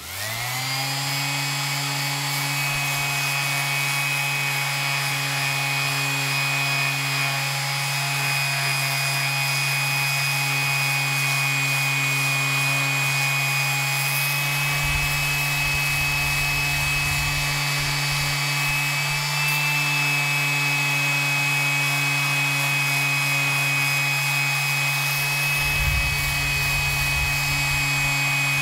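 Electric random orbital sander, turned down to its lowest speed and fitted with 120-grit paper, switching on and spinning up within the first half-second, then running at a steady hum with a high whine while its pad rubs a 3D-printed PLA part flat. A lower rubbing rumble comes in twice, once around the middle and once near the end.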